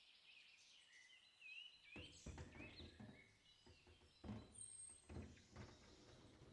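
Faint metal knocks and clunks of a baking tray being slid onto an oven rack and the oven door being shut, starting about two seconds in. Faint bird chirps are heard through the first half.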